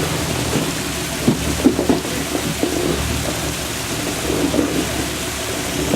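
Off-road Jeep's engine running low under a steady rushing noise as it crawls down a rock ledge, with a few sharp knocks around a second and a half in.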